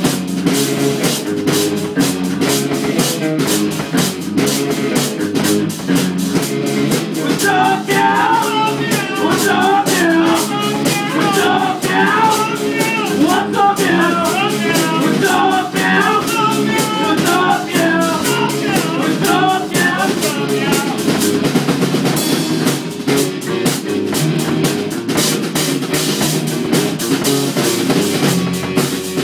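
Small rock band playing live: drum kit and electric guitars. A higher melodic line weaves over the middle stretch.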